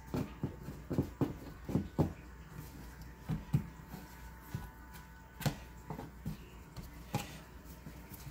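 Hands working sourdough dough on a floured wooden board, making soft, dull pats and taps. A quick run of them comes in the first two seconds, then single ones now and then.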